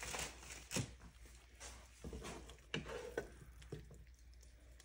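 Faint kitchen handling sounds: a plastic tortilla bag rustling, then a wooden spoon scooping sausage and black bean filling from a skillet, with a few light knocks of the spoon against the pan.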